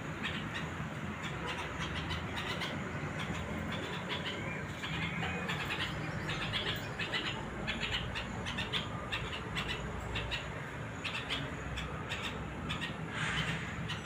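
Small birds chirping in garden foliage: many short, sharp calls in quick succession, over a steady low rumble.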